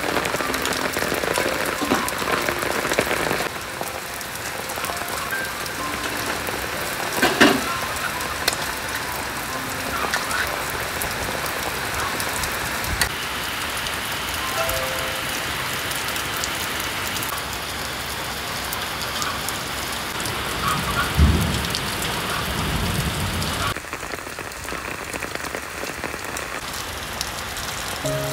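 Large wok of water boiling around cut bamboo shoots: a steady rain-like hiss of bubbling water. A sharp knock comes about seven seconds in, and a low thump around twenty-one seconds.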